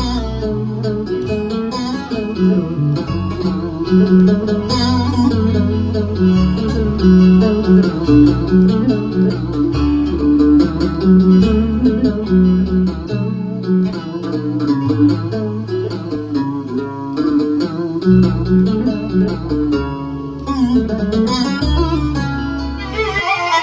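Korg Pa5X arranger keyboard playing a plucked-string melody over a bass line and accompaniment.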